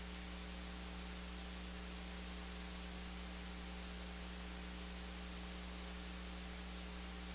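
Steady electrical mains hum with an even hiss over it, unchanging throughout.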